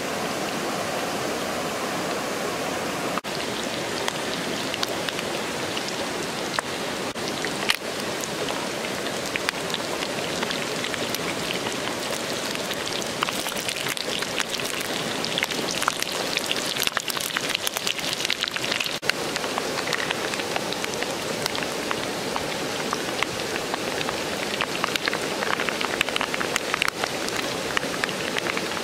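Hot oil sizzling steadily as egg-battered fish pieces deep-fry in a pan, with crackling pops that grow denser in the second half.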